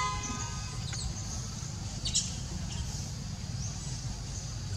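A vehicle horn's long steady tone ending under a second in, over a steady low rumble. A few short high chirps follow, the clearest about two seconds in.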